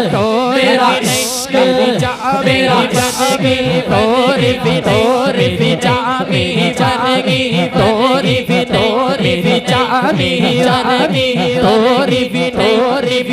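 A male naat reciter singing a long, ornamented, wavering melodic line into a microphone, over a steady held drone and an even beat of deep falling thuds.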